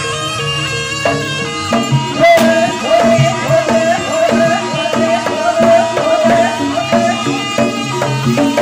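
Javanese jaranan ensemble playing traditional music: hand drums keep a steady pulse under a held, wavering melody line that comes in about two seconds in and drops out near the end.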